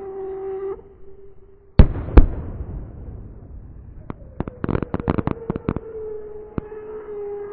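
Fireworks: two loud bangs about two seconds in, then a rapid string of sharp cracks and pops a couple of seconds later, over a steady siren-like tone.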